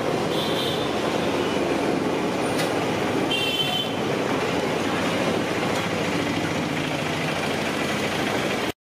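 Steady street traffic noise, with two short high-pitched toots about half a second and three and a half seconds in.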